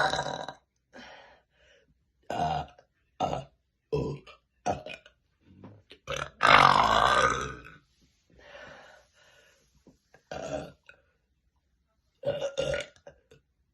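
A woman burping over and over: a string of short burps, with one long, loud burp about six seconds in and a quick pair near the end.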